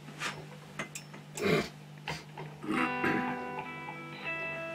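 A few knocks, then about three seconds in an electric guitar starts: a few notes and chords, the last left ringing, over a steady low hum.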